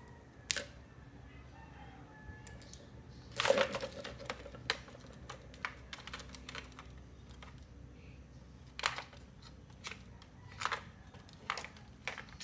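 Irregular plastic clicks, taps and knocks as the parts of a toy Groza gel-ball blaster are handled and fitted together: the battery going into its compartment and the scope being seated on the rail. A louder clattering knock comes about three and a half seconds in.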